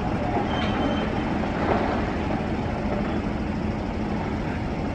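Steady machinery rumble with a constant low hum, from mining equipment: a rope shovel loading Caterpillar 793F haul trucks. There are a few faint knocks in the first two seconds.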